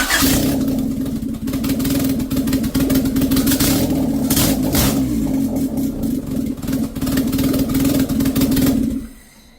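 1991 Honda Civic's four-cylinder engine running roughly, loud and uneven, with no air intake fitted, which the owner believes is why it runs so badly. It stops abruptly about nine seconds in.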